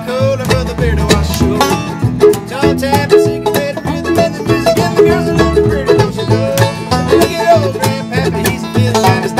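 Acoustic bluegrass band playing: banjo, acoustic guitar and a plucked upright bass keeping a steady beat.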